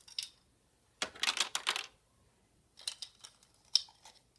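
Small magnets and Lego plastic parts clicking and clattering as the magnets are loaded into the Lego vending machine's hopper, in three quick bursts of clicks.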